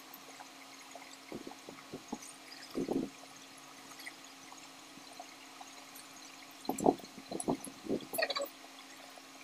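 Lansones fruit being peeled by hand and eaten close to the microphone: two short clusters of quick soft eating and peeling sounds, one starting about a second in and one around seven seconds in, over a faint steady hum.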